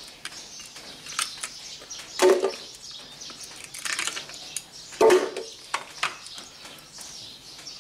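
Ice cubes dropped one by one into a plastic blender jar of mango chunks, each landing with a short clunk. The two loudest land about two and five seconds in.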